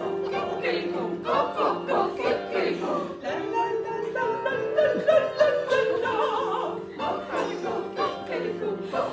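Waltz music played by classical instruments, with sliding, voice-like melodic lines over sustained chords.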